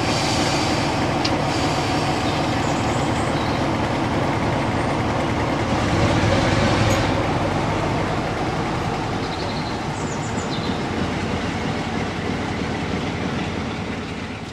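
A large main-line diesel locomotive running along the track and drawing away, with a steady engine hum and rail noise. It swells briefly about halfway through, then fades gradually over the last few seconds.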